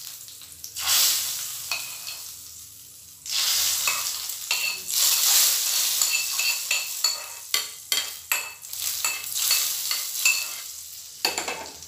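Hot ghee tempering with cumin seeds and dried red chillies sizzling as it is poured from a small kadhai onto cooked dal. A short sizzle comes about a second in, then a longer sizzle from about three seconds in that dies down near the end, with clicks from a spoon scraping the pan.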